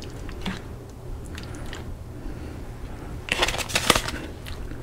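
A serving utensil scraping and clinking against the pan as fajita meat, peppers and onions are dished out: a few scattered clicks, then a dense run of scrapes and clatter a little over three seconds in, over a steady low hum.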